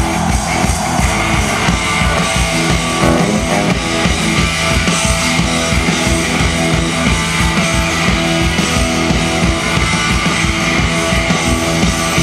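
Hard rock band playing live and loud through a festival PA: distorted electric guitar over a fast, steady drum beat.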